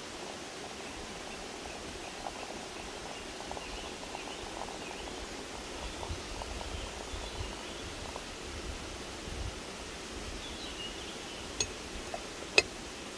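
Hot water running steadily from a samovar tap into a cast-iron teapot. Near the end come two sharp metal clinks, the second and louder one as the teapot's metal lid is set in place.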